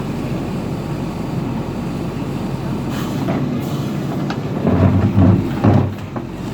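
JCB earthmover's diesel engine running steadily at work, with a few louder surges near the end as it comes under load.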